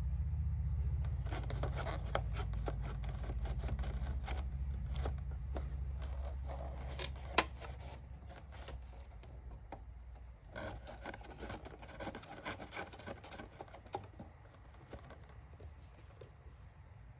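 Homemade cardboard whack-a-mole toy worked by wooden chopstick levers: small wooden clicks, scrapes and cardboard rubs as the wool balls are pushed up through the holes, with one sharp click about seven seconds in. A low rumble underneath stops about ten seconds in.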